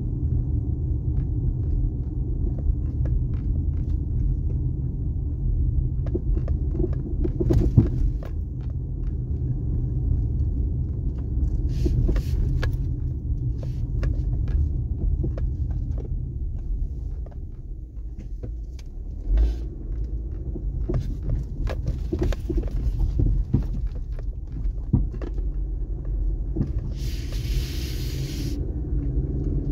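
Vehicle on the move: a steady low rumble of engine and tyres, with frequent small knocks and rattles throughout and a brief hiss a couple of seconds before the end.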